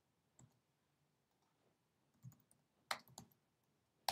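A few faint, scattered computer keyboard keystrokes in near silence, the last one near the end the loudest.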